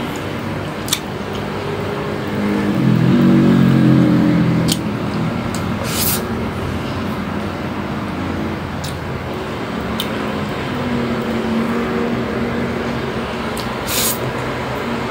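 Steady background noise with a low hum that swells about two to five seconds in and again, fainter, later on, like a vehicle going past. A few short sharp clicks and mouth noises come from pulling grilled meat off bamboo barbecue sticks and eating, one of them near the end as a piece goes into the mouth.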